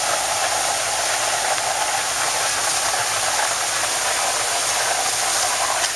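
Steady rushing hiss of a high-volume water stream from a Blitzfire portable hose monitor, spraying onto a burning barn.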